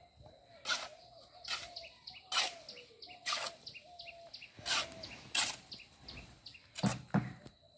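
Steel mason's trowel scraping and knocking in a metal mortar pan as mortar is scooped, about one sharp stroke a second. Birds chirp in the background.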